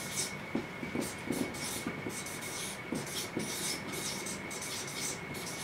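Marker writing on a whiteboard: short scratchy, squeaky strokes, a few a second, with light taps as the tip meets the board between letters.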